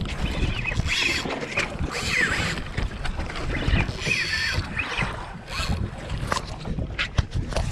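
Wind on the microphone and water against the hull of a small boat at sea, a steady rough rumble, with a few sharp knocks near the end.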